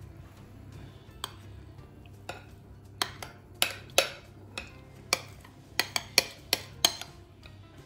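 Metal spoon scraping and clinking against a glass mixing bowl as thick cream-cheese batter is scraped out: a string of sharp clinks, few at first and coming faster from about three seconds in, over a low steady hum.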